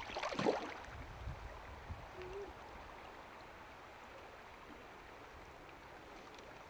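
A released rainbow trout kicks off from the hands with a brief splash in shallow water about half a second in. After that comes the steady flow of the river over stones.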